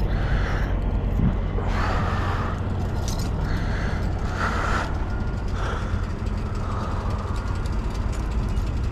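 Harley-Davidson V-twin engine running at low revs as the motorcycle rolls slowly and comes to a stop, a steady low rumble. A few short higher-pitched sounds come over it in the first half.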